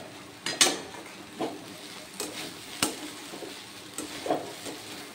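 A spatula stirring and turning rice pulao in a non-stick kadai, with irregular scrapes and taps against the pan, about seven of them, over a faint sizzle.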